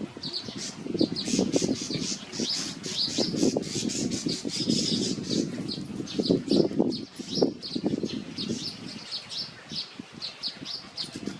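Weaver birds chattering in rapid strings of short, high chirps, over low rustling and fluttering from the bird at its grass nest.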